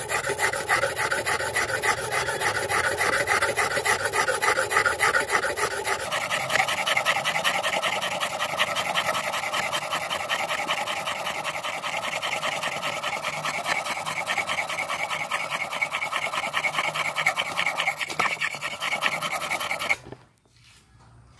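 A steel blade being ground back and forth on a wet red clay brick used as a whetstone, with water keeping the brick cutting: a rapid, steady scraping rasp. Its pitch shifts higher about six seconds in, and the grinding stops abruptly about a second before the end.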